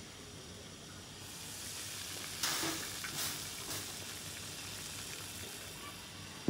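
Water boiling hard in the base of an aluminium steamer pot on a gas burner, a steady hiss of bubbling and steam, ready for steaming. A brief louder rush of noise about two and a half seconds in, with a smaller one shortly after.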